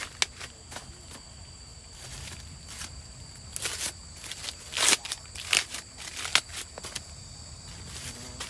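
Scattered rustles and crackles of dry plant material being handled or stepped on, the loudest about five seconds in. A faint steady high-pitched whine runs underneath.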